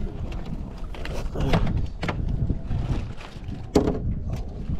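Wind rumbling on the microphone and water against the hull of a small fibreglass boat. Over it come a few sharp knocks on the boat, the loudest a little before the end, as a fish is swung aboard in a landing net.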